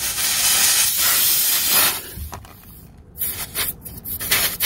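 Air hissing out of a punctured tyre whose repair plug has not sealed. It is a steady hiss for about two seconds, then several shorter hisses with brief pauses.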